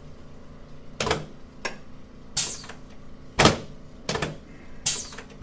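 Chiropractic adjustments on a patient's upper chest and shoulder: a quick series of about six short thumps and pops, the loudest about three and a half seconds in.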